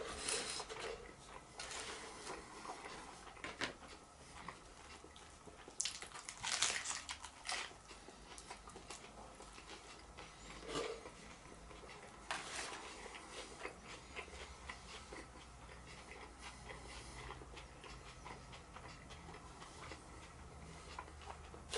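Faint sounds of a person eating a breaded chicken burger with onion rings: bites and chewing, with a few louder, irregular crisp bursts about a second in, around six to seven seconds, and near eleven and twelve seconds.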